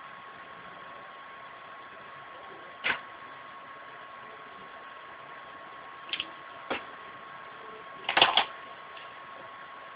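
Steady background hiss with a faint, constant high whine, broken by a few short clicks and taps: one about three seconds in, two around six to seven seconds, and the loudest cluster about eight seconds in.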